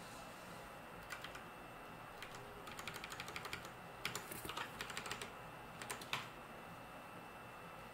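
Computer keyboard typing: irregular short bursts of key clicks, the densest run from about two to five seconds in.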